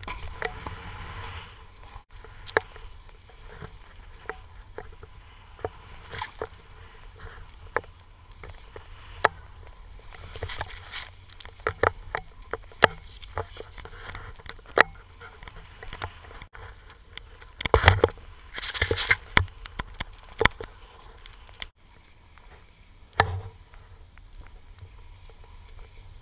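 Skis running and scraping over snow with a steady rush of wind noise and many scattered sharp knocks and clicks; a louder stretch of scraping and knocks comes about eighteen seconds in.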